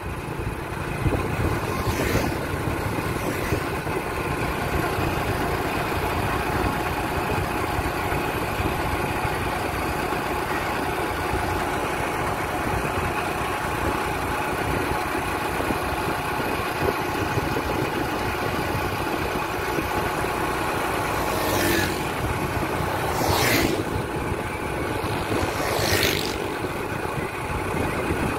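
Engine of a moving road vehicle running steadily at cruising speed, with steady road and wind noise. Three short rushes of noise come near the end.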